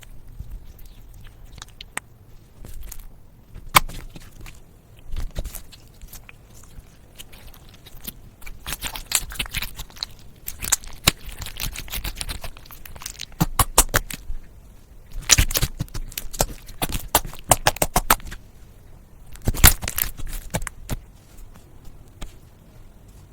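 Slime being squeezed and worked by hand, giving irregular bursts of rapid clicks and crackling pops, densest in the second half.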